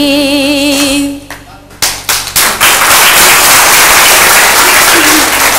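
A woman's voice holds the last note of a Manipuri folk song with a wavering vibrato, which ends about a second in. A few separate claps follow, then steady clapping.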